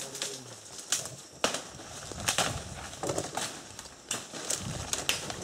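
Dry leaves and twigs crackling and snapping underfoot and against the body as someone pushes through dense undergrowth: a string of sharp, irregular cracks over a steady rustle.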